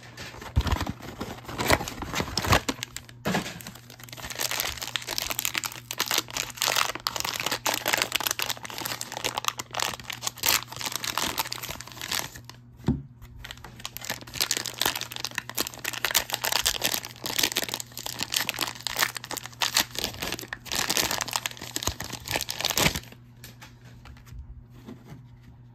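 Wrapping of a football trading-card hanger box and its pack being torn open and handled, a dense run of crinkling and tearing that dies down about 23 seconds in.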